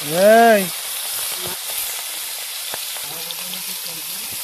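Pangas fish steaks sizzling steadily as they fry in oil in an iron kadhai. Right at the start there is a brief, loud call, about half a second long, whose pitch rises and then falls.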